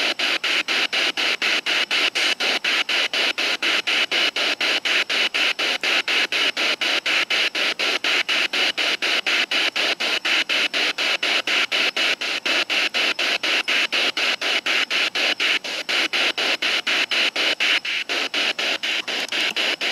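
Ghost box (spirit box) sweeping through radio stations: static hiss cut into short, even chunks about three times a second by the channel sweep, with broken snatches of radio sound.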